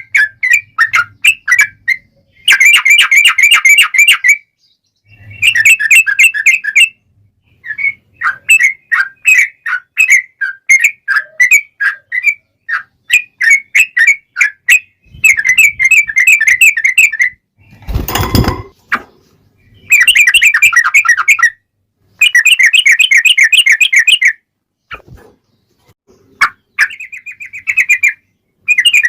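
Yellow-vented bulbul (trucukan) singing: loud, rapid chirping phrases in bursts of one to two seconds with short gaps between them. A brief loud crackle cuts across the song about 18 seconds in.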